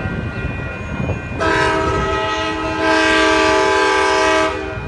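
Amtrak Downeaster train horn blowing for the grade crossing as the train approaches. A steady chord starts about a second and a half in, gets louder about halfway through, and cuts off near the end.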